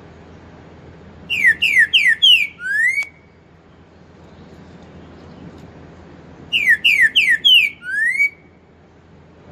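A caged green-winged saltator (trinca-ferro) sings two loud phrases a few seconds apart. Each phrase is four quick falling whistled notes and then a rising closing note, the song type keepers call 'four-note boi'.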